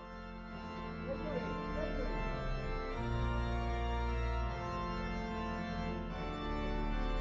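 Organ playing slow, held chords over deep bass notes, the chord changing every one to two seconds.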